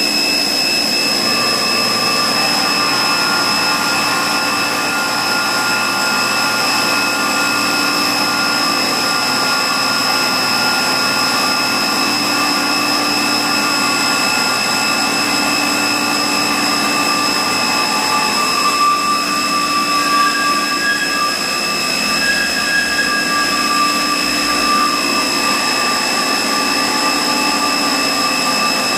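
Rüsch RDU320/600 beam drilling and sawing line running: a steady, loud mechanical whine carrying several high, unchanging tones. A couple of higher tones come and go about two-thirds of the way in.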